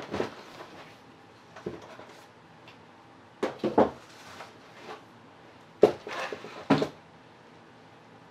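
Knocks and clatters of a painted canvas board and cardboard egg-carton supports being shifted and set down in a plastic tub. They come in four short groups, the loudest about halfway through and about two-thirds through.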